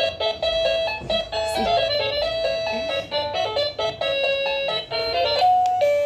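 Wireless doorbell chime playing one of its electronic tunes through its small speaker: a quick run of beeping notes, ending on a held note that fades away near the end.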